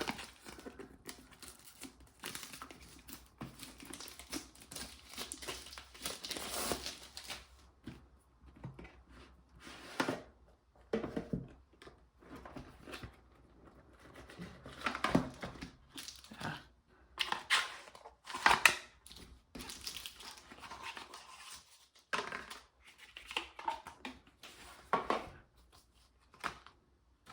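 Paper and plastic album packaging crinkling, rustling and tearing as it is unwrapped and its paper inserts are handled, in irregular bursts of rustles and scrapes.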